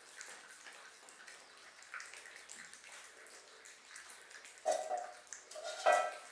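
A puppy's claws clicking lightly on a tiled floor as it walks, with two short, louder sounds that have a clear pitch near the end.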